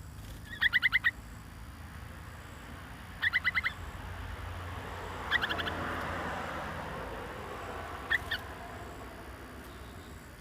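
Caged bulbuls giving short chattering calls, four quick bursts of rapidly repeated notes a few seconds apart, the last one brief. A broad rushing noise swells and fades in the middle.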